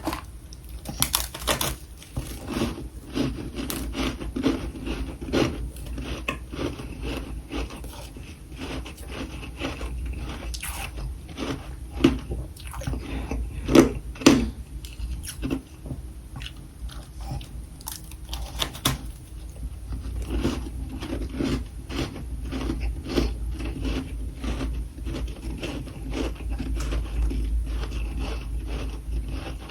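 Irregular crunching and clicking, several sharp crunches a second over a low steady hum, loudest about halfway through.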